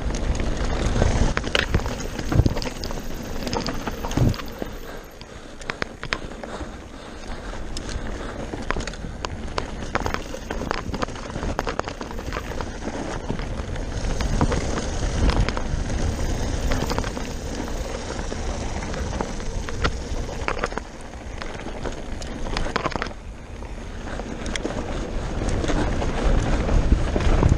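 Enduro mountain bike descending a dirt and gravel trail at speed: a steady rush of tyre and wind noise, broken by frequent clicks and rattles from the bike over bumps and a few heavier thumps.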